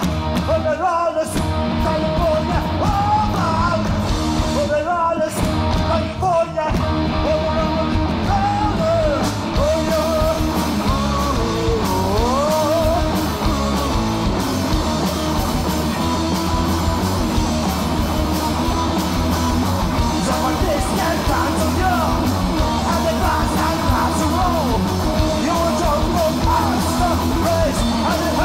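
Punk rock band playing live: distorted electric guitars, bass and drum kit, with a lead vocal. The band cuts out briefly a few times in the first seven seconds, then plays on steadily.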